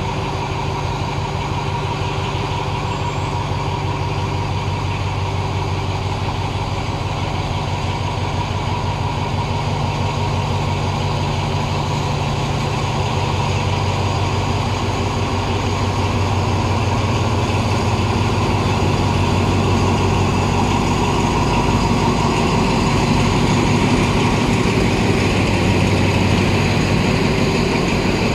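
Diesel train engine running steadily at idle. Its low note shifts about halfway, and it grows a little louder toward the end.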